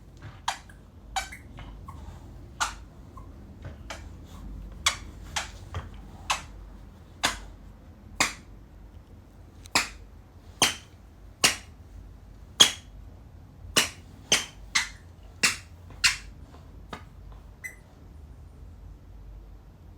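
Squeaky dog toy squeezed again and again: about twenty short, sharp squeaks at irregular intervals, stopping a couple of seconds before the end.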